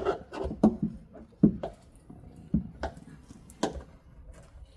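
A handful of irregular light clicks and knocks: hands working a car's wiring harness and its plastic connectors free.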